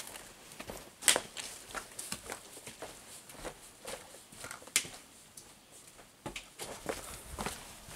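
A hiker's footsteps on a trail: irregular steps and sharp clicks, a few per second, the sharpest about a second in.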